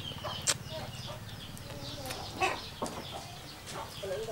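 Chickens clucking in the yard, with short high bird chirps and a few sharp clicks, the loudest about half a second in.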